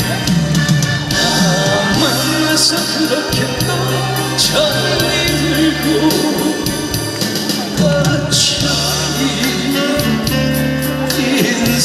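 A man sings a Korean trot ballad live into a handheld microphone over a recorded backing track, with held bass notes and a steady beat.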